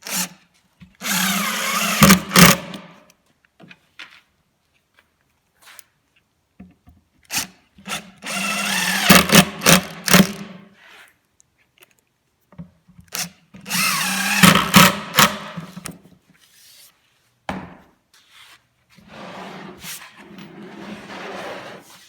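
Power drill running into a melamine cabinet panel in short runs of a couple of seconds, three loud ones and a quieter one near the end, pre-drilling or driving screws for the cabinet's assembly.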